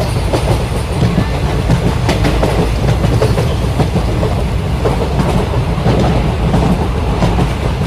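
Toy train's locomotive running on its track: a steady low motor rumble with many small clicks from the wheels on the rails.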